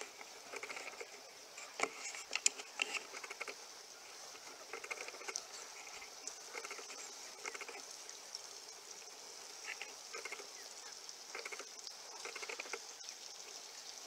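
Footsteps on a grass lawn: a soft rustle or scuff about once a second, with a couple of sharper clicks about two seconds in.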